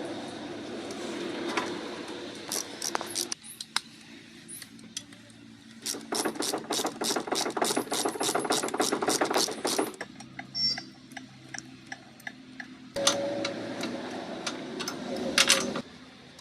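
Ratchet wrench clicking rapidly and evenly, about five or six clicks a second, in two runs separated by quieter stretches.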